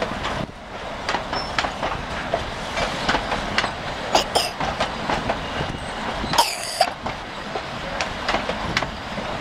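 Heritage passenger carriages rolling past on a curve, their wheels clicking over the rail joints over a steady rumble. Two brief high squeals come from the wheels, about four seconds in and again about six and a half seconds in.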